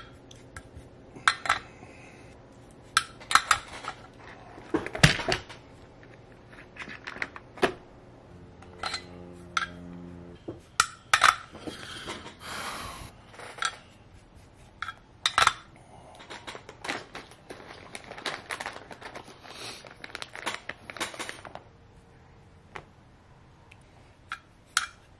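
Irregular sharp clicks and light metallic clinks as small hand tools, wires, a metal soldering jig and a soldering iron are picked up, tapped and set down on a workbench during soldering work, with a short hiss about twelve seconds in.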